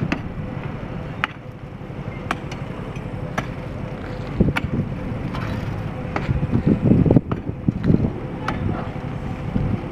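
A pickaxe striking concrete rubble, sharp hits at about one a second. A low rumble swells in the second half and is the loudest part.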